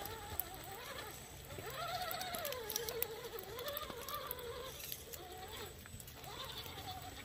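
Electric motor and drivetrain of a scale RC crawler truck whining, the pitch rising and falling as the throttle is worked, with scattered light clicks.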